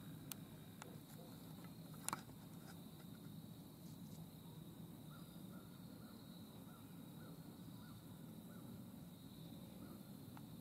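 Quiet woodland ambience: a faint steady high tone over a low hush, with a few soft clicks and one brief sharp snap about two seconds in. Faint short chirps repeat about twice a second in the second half.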